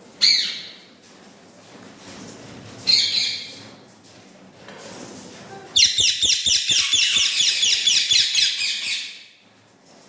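Indian ringneck parakeets calling: a short squawk at the start and another about three seconds in, then a loud, rapid run of repeated calls lasting about three seconds that fades out near the end.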